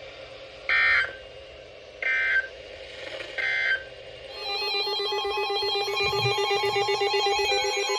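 Three short screeching digital data bursts from an Emergency Alert System broadcast, the SAME end-of-message code that closes a weather radio warning. About four seconds in, a rapidly trilling electronic alert tone with several pitches starts and keeps going.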